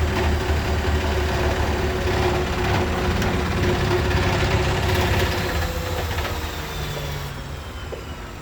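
Beko WMY81283LMB2 front-loading washing machine on a high-speed spin: a loud steady rumble with a steady motor whine. From about five seconds in, the whine slides down in pitch and the sound fades as the drum brakes and slows, the spin cut short.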